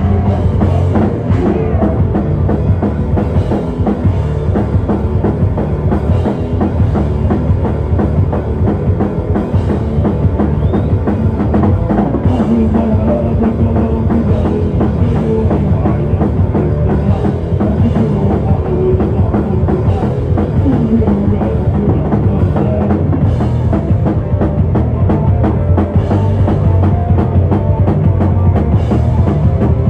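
Live heavy metal band playing at full volume: distorted guitars, bass and a pounding drum kit, recorded loud with little headroom.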